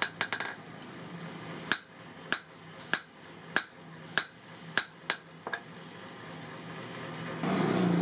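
Hand hammer striking hot leaf-spring steel on an anvil, a sharp ringing blow about every 0.6 seconds, stopping a little after halfway. Near the end a louder steady rushing noise with a low hum starts.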